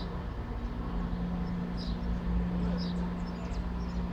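Steady low hum of a Vale passenger train standing at a station platform, its engine or on-board equipment running, with a few short high chirps scattered through.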